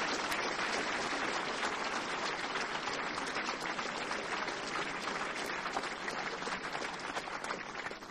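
A large audience applauding: dense, steady clapping that thins out and dies away near the end.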